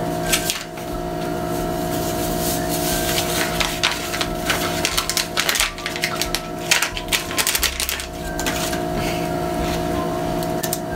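Wire whisk stirring cake batter in a mixing bowl, with irregular clicks and scrapes of the whisk against the bowl, over a steady low hum.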